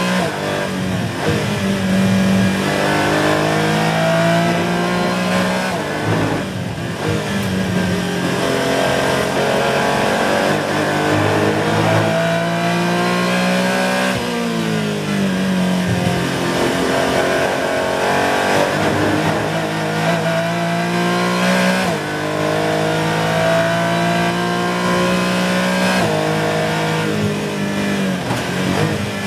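Porsche 718 Cayman GT4 race car's flat-six engine at full throttle, heard from inside the cockpit. The note climbs through the revs, drops sharply at each gear change or braking point, and climbs again, several times over.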